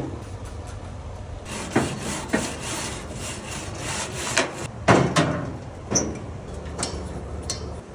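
Grill brush scrubbing the grates of a gas barbecue grill in a run of rasping strokes, clearing dirt off them, with a few sharp knocks of the brush against the grill. The scrubbing stops about two-thirds of the way through, leaving only a couple of knocks.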